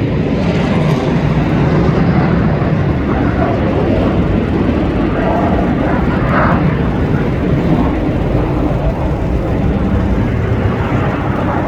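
Fixed-wing aircraft flying overhead: a loud, steady engine noise that continues without a break.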